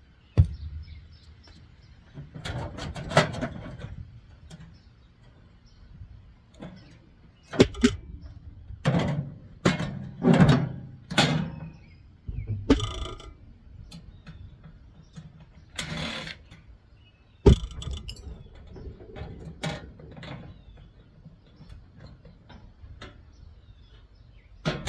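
Metal parts of a microwave being handled and pried apart by hand: irregular clanks, rattles and scraping of sheet metal, with a few sharp knocks.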